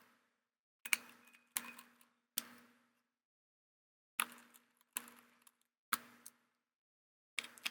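Separate sharp clicks and taps, about seven of them at irregular intervals, each with a brief ring: a precision screwdriver and small screws knocking against the laptop's hinges and palmrest while the hinge screws are driven in.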